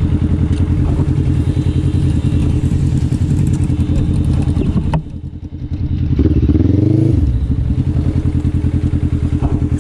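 Quad bike (ATV) engines idling with a steady low chugging. About five seconds in the sound briefly drops, then an engine revs once, its pitch rising and falling back, and the idling carries on.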